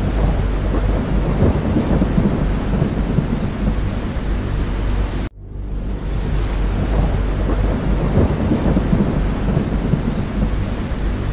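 Steady heavy rain over a deep, continuous low rumble. The whole sound cuts out abruptly for an instant about five seconds in, then comes straight back.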